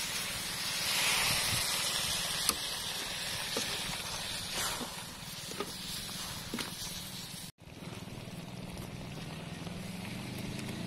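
Hot wok sizzling and hissing as water is poured over pieces of fried fish, with a few light clicks of a metal ladle against the pan over a steady low hum.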